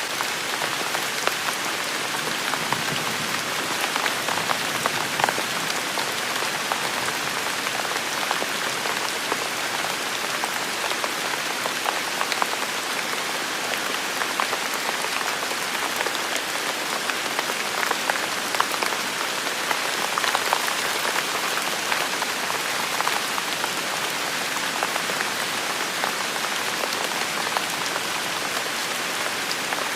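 Steady rain falling, with many separate drop hits standing out from the even hiss.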